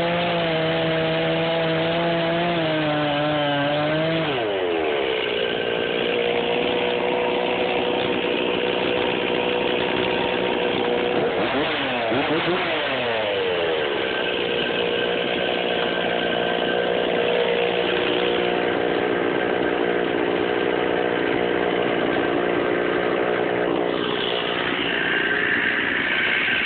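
Stihl chainsaw cutting through a log under load for the first few seconds, then its pitch changes as the cut ends. The saw runs on out of the wood, with its engine rising and falling in pitch once near the middle.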